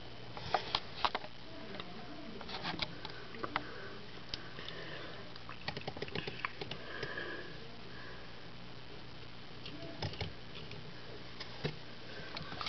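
Close-up sniffs and breathing with scattered light clicks and taps, several sharp ones about half a second to a second in and a few more later.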